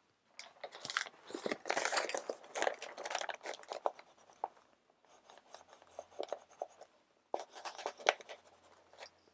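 Brown kraft paper mailer rustling as it is handled, and a soft graphite drawing pencil scribbling quick back-and-forth strokes on it. The strokes come in bursts, with a strong one near the end.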